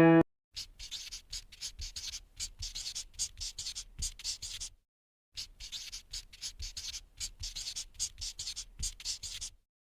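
Oil pastel scraping on paper in quick, repeated back-and-forth strokes, several a second, with a short pause about halfway through.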